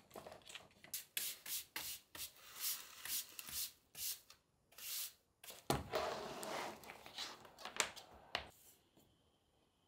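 A small hand brush sweeping crumbs off a plastic cutting mat into a dustpan: a quick run of short brush strokes, then longer sweeps about six seconds in. A couple of sharp taps near the end as a mesh-backed sheet of stone tiles is set down on the mat.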